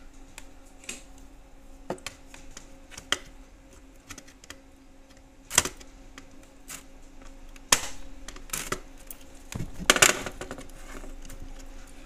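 Hands handling plug-in connectors on a control circuit board: a scattered run of sharp plastic clicks and knocks, the loudest about five and a half, eight and ten seconds in, over a faint steady hum.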